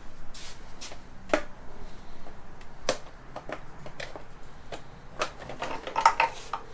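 Irregular light clicks and taps as a plastic push-button fastener is worked loose from a motorcycle fairing, with a small cluster of clicks near the end.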